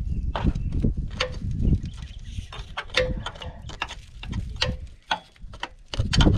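Cat 953C track loader moving, its steel tracks squeaking and clanking in quick, irregular strokes over the low rumble of its diesel engine. The rumble drops briefly about five seconds in, then picks up again.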